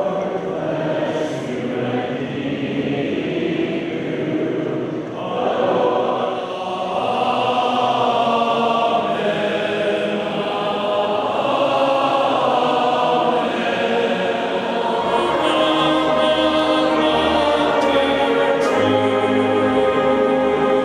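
Many voices singing together in sustained chords, with deeper notes coming in about fifteen seconds in.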